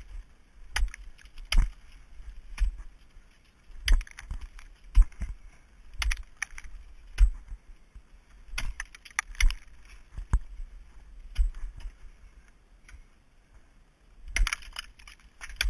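Ice tool picks swung into waterfall ice, a series of sharp, irregular strikes about once a second with a quick flurry near the end.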